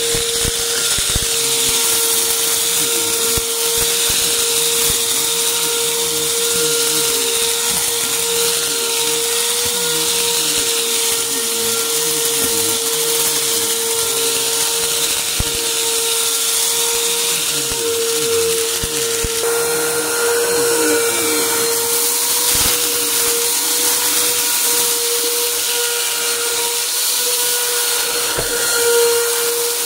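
Upright vacuum cleaner running over carpet, its motor holding a steady whine, with scattered short crackles of debris being sucked up.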